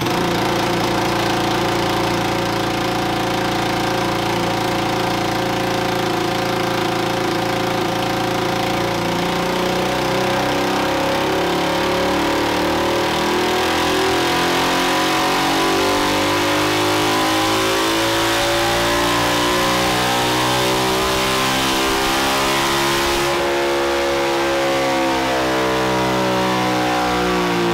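Predator 223cc stroker single-cylinder four-stroke engine on an engine dyno, running steadily at low speed and then revving up in a full-throttle dyno pull, its pitch climbing smoothly for about fourteen seconds. Near the end the throttle comes off and the pitch eases down.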